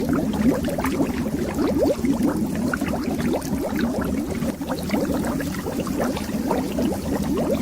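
Underwater bubbles rising in a continuous dense stream, many overlapping short bubbly plops that each sweep quickly upward in pitch, over a low steady rumble.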